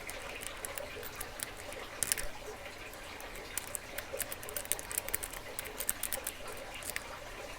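Lock pick and tension wrench working in a Master Lock padlock's keyway: faint, irregular small metallic clicks and scratches as the pins are picked.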